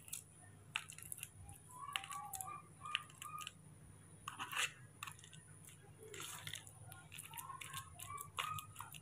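A metal spoon mashing and stirring banana, rice and porridge in a small plastic bowl: faint, irregular soft scrapes and squelches, with occasional clicks of the spoon against the bowl.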